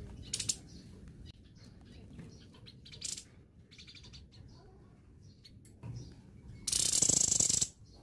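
Caged songbird giving short sharp chirps about half a second and three seconds in, with scattered softer chirps. Near the end comes a loud, harsh burst of noise lasting about a second.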